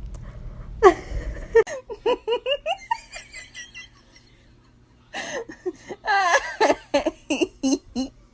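Laughter in quick, pulsing bursts: one stretch in the first few seconds, then a pause, then a louder stretch near the end.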